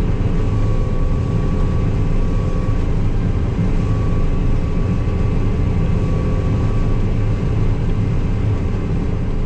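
Combine harvester running steadily in a soybean field: a continuous deep engine and machinery drone with a thin, steady whine above it.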